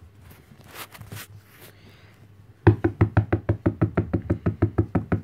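Fingers tapping rapidly and evenly on a hard surface, about eight taps a second, starting about halfway through after a quiet stretch; the tapping is a call to round up the puppies.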